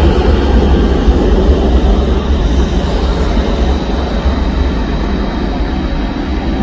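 Airbus A320-232 jet airliner's IAE V2500 turbofans at take-off power during the take-off roll: a steady roar with a deep rumble, easing slowly as the jet moves away down the runway.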